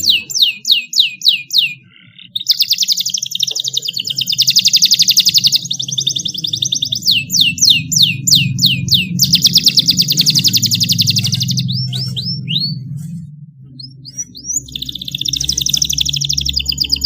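Domestic canary singing: runs of quick downward-sweeping notes alternating with long, very fast rolling trills, broken by two short pauses, over a low hum.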